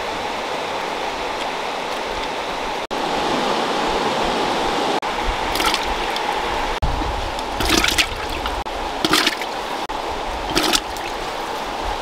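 Water sloshing and splashing as a hand washes wild mushrooms in a clay pot of water: three short splashes in the second half, over a steady hiss.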